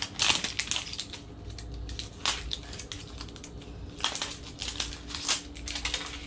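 Plastic wrapping being picked at and torn off a new roll of duct tape: irregular crackles and clicks in short clusters.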